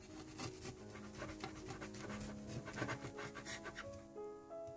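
Soft background music with held notes, over quick rhythmic scratchy strokes of a kitchen knife sawing down through a baked cake.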